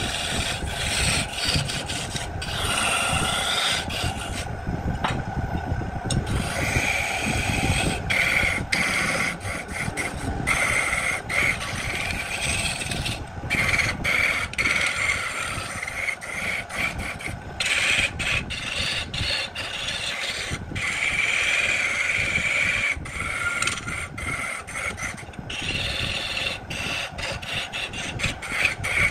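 A turning tool scraping the surface of a wooden vase spinning on a lathe: a steady rasping hiss with frequent short breaks as the cut eases off.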